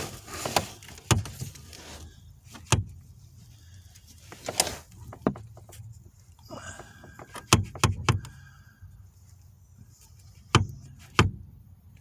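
Scattered sharp clicks and knocks, about ten in all, from handling around the metal pedal bracket under the dashboard. A faint squeak-like tone lasts about a second, roughly two-thirds of the way through.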